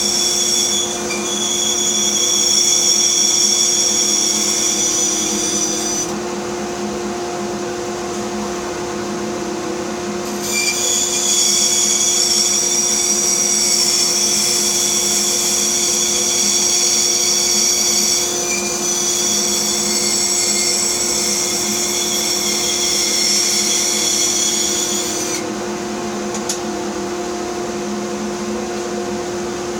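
Bandsaw running with a steady motor hum; the blade cutting through a wooden block adds a high-pitched whine for the first six seconds, then again from about ten seconds in until about twenty-five seconds.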